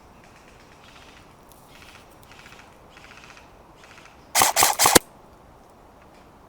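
A short burst of airsoft gunfire: four sharp cracks in quick succession, about four and a half seconds in.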